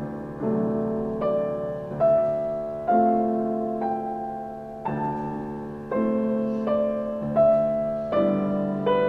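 Slow piano music, a note or chord struck about once a second and left to ring out.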